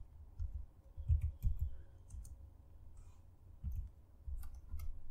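Typing on a computer keyboard: an irregular run of key clicks and dull thumps, with a short pause a little past the middle.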